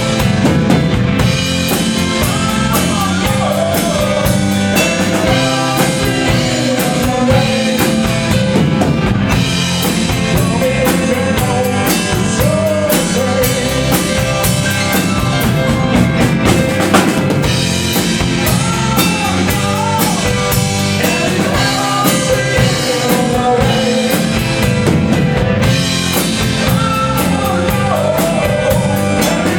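Rock music with no vocals: a drum kit keeps a steady beat under the band, while a lead melody bends up and down in pitch above it.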